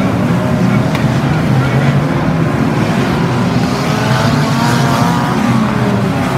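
Several banger racing cars' engines running and revving together, a loud continuous blend of engines rising and falling in pitch.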